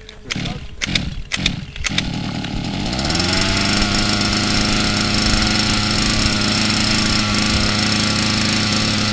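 Two-stroke engine of a large RC helicopter being cranked. It catches about two seconds in, rises in pitch, and settles into a steady idle.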